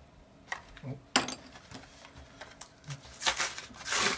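Pokémon trading cards being handled: a few sharp taps and clicks, then a rustle near the end.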